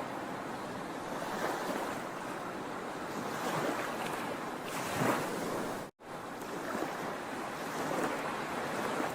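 Sea waves breaking and washing ashore: a continuous rush that swells every couple of seconds. The sound cuts out for an instant about six seconds in.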